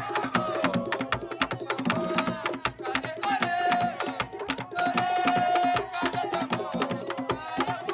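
Music with lively hand percussion: rapid drum and wood-block hits under held melodic notes.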